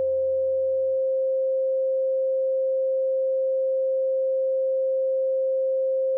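A steady synthesized pure tone just above 500 Hz. A softer low drone and other faint tones under it fade out about a second in, leaving the bare tone.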